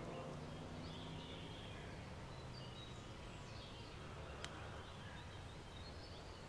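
Faint outdoor ambience with scattered distant bird chirps and a low hum that fades out in the first half, with one small sharp click about four and a half seconds in.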